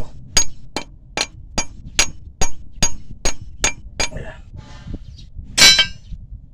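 Steel hammer striking a rounded-off bolt on a Caterpillar 320C excavator travel motor's flange to knock it loose. There are about eleven ringing metal blows at a steady pace of roughly two and a half a second, then a single louder, longer clang near the end.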